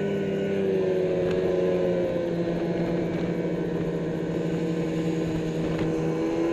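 Snowmobile engine running steadily at cruising speed, its pitch dipping slightly about two seconds in.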